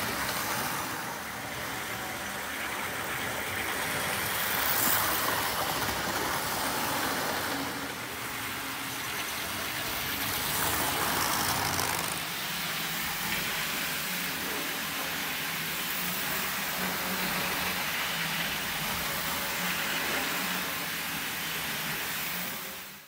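OO gauge model diesel trains running around sectional track: a steady whir of their small electric motors and wheels on the rails, changing a little about twelve seconds in.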